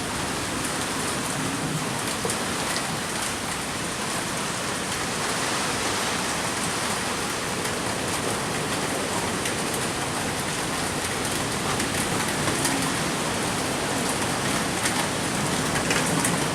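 Typhoon rain pouring steadily, with sharp drop hits now and then.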